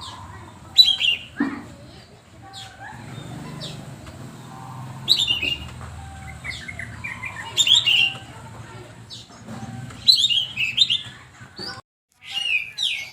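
Songbird chirping in quick bursts of sharp, sweeping notes and short trills every few seconds, over a steady low hum, as in a recording used to train caged birds to sing.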